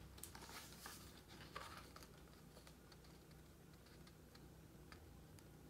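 Near silence: room tone with a few faint rustles and soft clicks in the first two seconds as a picture book is held up and handled.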